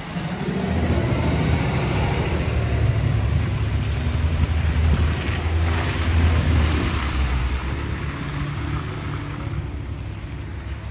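A motor vehicle going by on the street: a low engine drone builds up early on and holds for several seconds, with tyre hiss peaking about five to six seconds in, then eases off.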